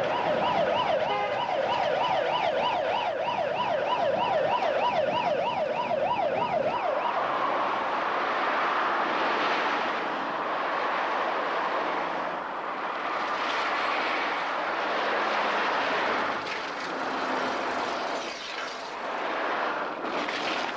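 A siren yelping in fast up-and-down sweeps, about four a second, that stops abruptly about seven seconds in, leaving a steady rush of traffic noise.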